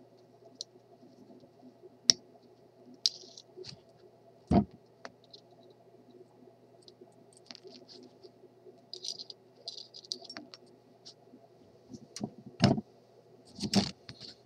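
Small metallic clicks, rattles and scrapes of pliers working on the metal innards of a broken 6BA6 vacuum tube, with a handful of louder sharp knocks scattered through, over a steady low hum.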